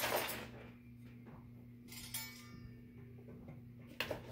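Faint background music: a single plucked, ringing note about two seconds in, over a steady low hum. A rustle at the start and a short knock near the end.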